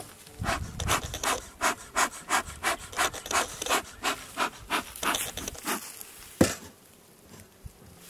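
Bee smoker's bellows pumped in quick strokes, about three puffs of air a second, to get the pellet fuel burning and smoking. The puffing stops about five and a half seconds in, and a single sharp knock follows about a second later.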